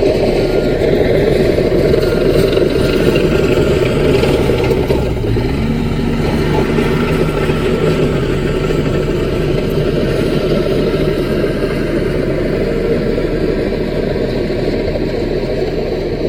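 CAT mini bulldozer's diesel engine running steadily under work; about five seconds in the engine note drops a little and settles into a steadier tone.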